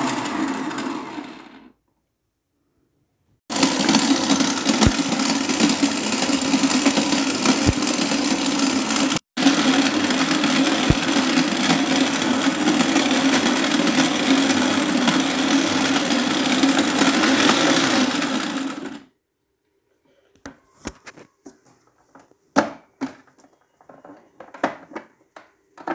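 Electric food processor running as it kneads flour, yeast, egg and oil into donut dough, with a steady motor hum. It stops about two seconds in, starts again shortly after, breaks off for an instant partway through and cuts out about three-quarters of the way in. A few scattered clicks and knocks follow.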